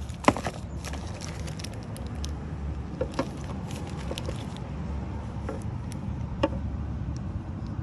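Light clicks and taps of small transmission parts being handled, a sharp click just after the start and a few fainter ones later, over a steady low background rumble.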